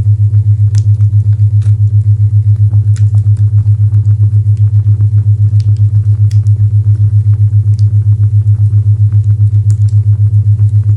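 A low hum-like isochronic tone pulsing on and off several times a second, over the faint crackle of a fireplace with scattered small pops.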